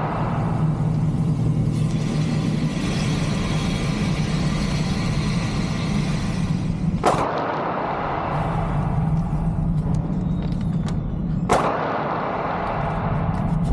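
Two sharp gunshots about four and a half seconds apart, over a steady low rumble.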